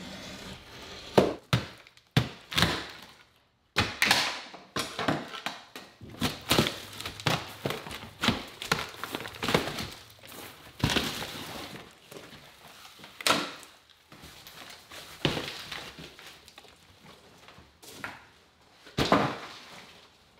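Drywall being broken out of a framed wall with a hammer and torn away by hand: a run of irregular knocks and cracks of breaking gypsum board.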